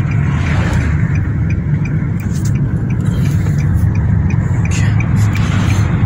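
Steady low engine and tyre rumble heard from inside a moving car's cabin.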